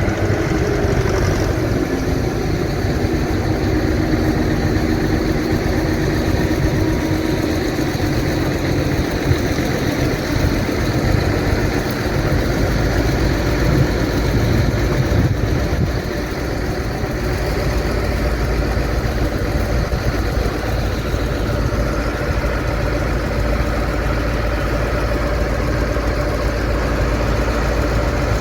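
Diesel engine of a Zetor 5748 tractor running steadily with a trailed Dania D5500 forage harvester chopping corn. A tone drops slightly in pitch in the first few seconds.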